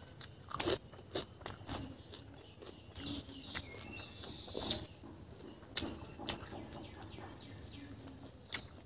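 Close-up chewing of fried potato, with sharp mouth clicks and smacks coming at irregular intervals. A few are louder than the rest.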